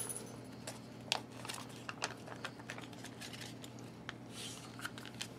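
Faint crinkling and light clicks of a foil MRE retort pouch being squeezed and handled as shredded beef in barbecue sauce is pushed out of it onto a plastic tray.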